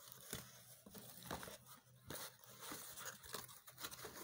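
Cardboard box and paper packing rustling and crinkling as a glass bowl is packed back into its box by hand, with a few light knocks.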